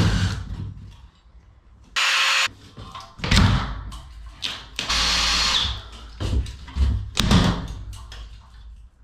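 Cordless drill running twice in short steady bursts, backing fasteners out of a ceiling light fixture, between loud knocks and rattles as the fixture comes loose and swings down.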